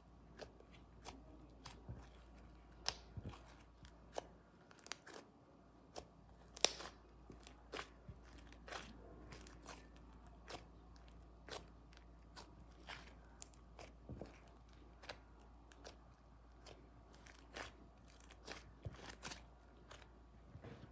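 Butter slime being kneaded, stretched and pressed by hand while it is mixed, giving irregular soft crackles and pops, about one or two a second.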